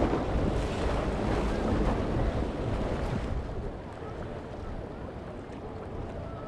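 Wind buffeting the microphone over choppy water, with a boat's quad outboard engines running slowly nearby. The rushing noise drops noticeably about three seconds in.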